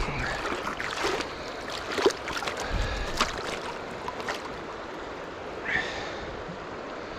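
River water running, with a few sharp splashes and knocks from a landed rainbow trout being handled at the water's edge.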